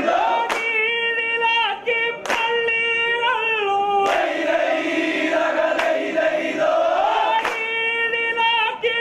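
Devotional chant sung by a group: a lead voice holds long, wavering notes with other voices behind it, and a sharp beat falls about every two seconds.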